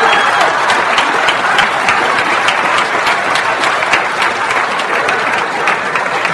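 Audience applauding, many hands clapping at once, slowly dying down.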